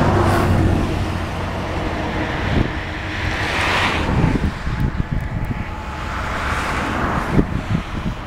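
Road vehicles passing by, each a swelling and fading tyre-and-engine hiss, the loudest about four seconds in and another about seven seconds in, over a steady low rumble.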